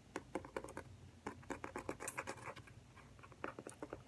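Hard pizza crust crunching and crackling in quick runs of sharp clicks, with a short lull about three seconds in.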